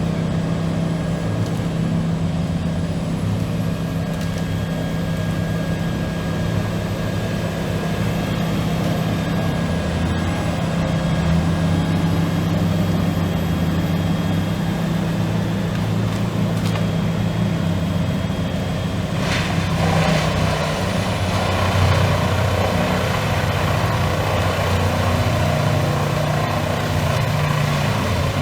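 Diesel engine of an industrial whole-tree shredder running steadily under load with a deep, even drone. About two-thirds of the way through, a sharp onset brings a harsher, rougher noise on top of the drone.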